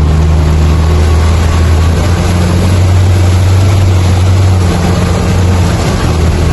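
All-terrain vehicle's engine running with a steady, loud, low drone whose pitch shifts slightly a couple of times.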